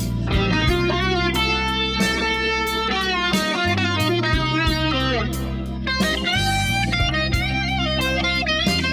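Background music: an electric guitar playing melodic lines over bass and drums with a steady beat, in a bluesy rock style.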